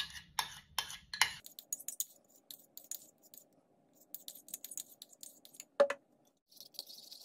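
Metal spoon clinking and scraping against a ceramic bowl while soft cream cheese is scooped out. A quick run of clinks in the first second or so, then faint scrapes and one sharper clink near the end.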